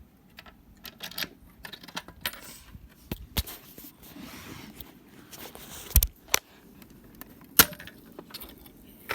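Keys jangling with a string of sharp metallic clicks and knocks as a Fire-Lite BG-12 SL fire alarm pull station is unlocked with its key and its cover opened. The loudest clicks come in the second half.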